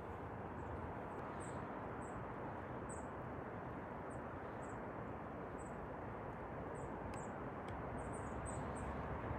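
Short, high, thin bird chirps repeat irregularly about once or twice a second, more of them close together near the end, over a steady outdoor hiss of ambient noise.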